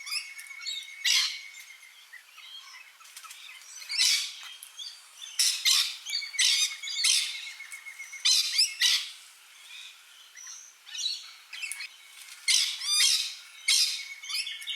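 Rainbow lorikeets screeching: harsh, shrill squawks in repeated bursts, several calls close together, with a thin steady high note underneath at times.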